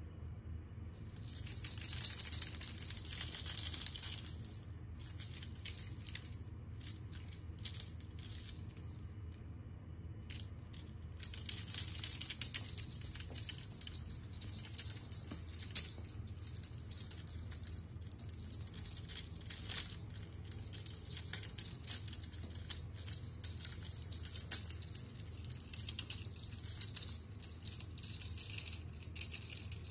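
Cat teaser wand toy rattling and jingling as it is shaken and flicked over the floor. It comes in spells: a burst about a second in, short scattered shakes, then near-continuous jingling from about eleven seconds in.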